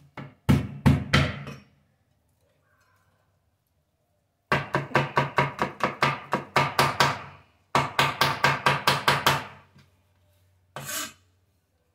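A broad-bladed knife chopping roasted garlic cloves on a wooden cutting board: a few chops at the start, then two fast runs of chops at about five a second, and one last chop near the end.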